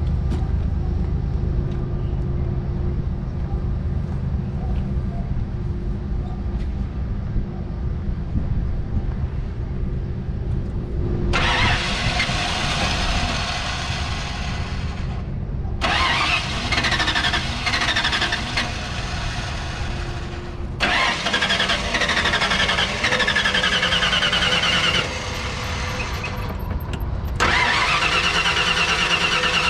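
Ford pickup truck's engine running under the open hood: a steady low idle at first, then from about eleven seconds in a louder, harsher run with a wavering high whine, broken into several abruptly joined stretches.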